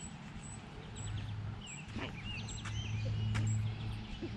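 Birds chirping in short, gliding calls, with a high note repeating about twice a second. Under them a low steady hum swells from about a second in and is loudest near the end, and there are a few sharp clicks.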